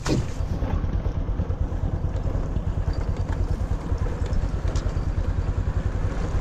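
A small engine running steadily with a rapid, even pulsing, after a sharp knock at the very start.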